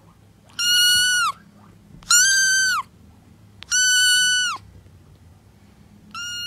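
Tabby kitten meowing: three loud, high-pitched meows about a second and a half apart, each held on one pitch and dropping off at the end, then a shorter, quieter meow near the end.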